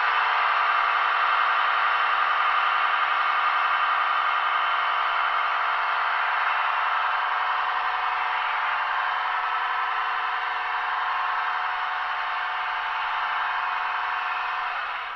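ZIMO MX645R sound decoder in a Roco H0 class 111 electric locomotive model, playing a steady electric-locomotive running sound through the model's small speaker while the locomotive stands still. It is a steady tone with many overtones that cuts off suddenly at the end.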